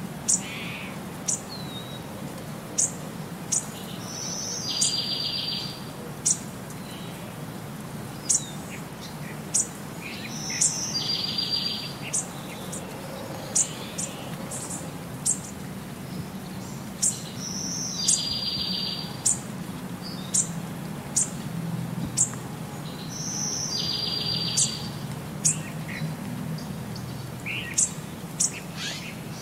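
Birds chirping: short high chirps about once a second, with a buzzier trill every six or seven seconds, the same pattern recurring evenly like a looped track. A steady low hum lies underneath.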